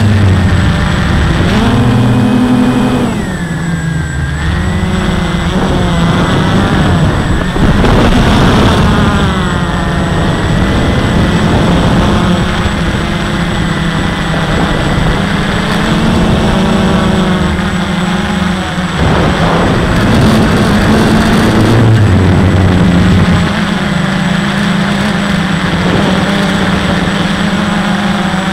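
Walkera QR X350 quadcopter's brushless motors and propellers whining, heard close up from the onboard camera. The pitch rises and falls every few seconds as the throttle changes.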